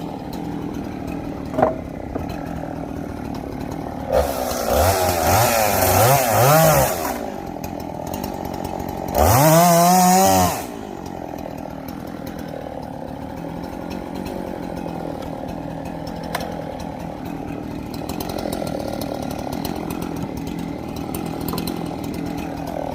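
Two-stroke chainsaw idling, throttled up twice: first with a wavering pitch for a few seconds, then in one quick rising burst to full speed for about a second, before settling back to idle.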